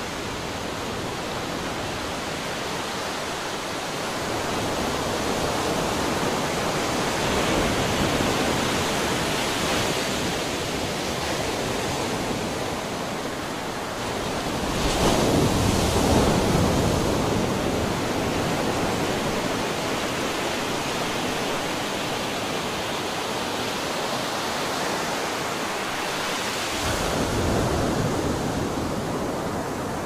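Ocean surf rushing steadily, with waves breaking louder about halfway through and again near the end.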